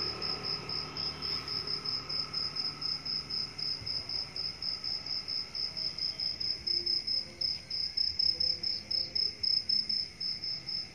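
A cricket chirping steadily, a high-pitched chirp repeating evenly about four times a second.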